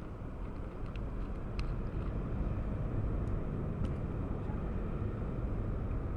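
Jet engines of a Boeing 737-800 (CFM56 turbofans) rumbling on the takeoff roll, growing louder over the first couple of seconds and then holding steady.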